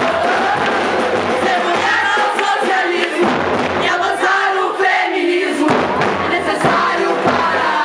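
A loud crowd of women singing and chanting together in unison, with scattered sharp percussion hits from the batucada.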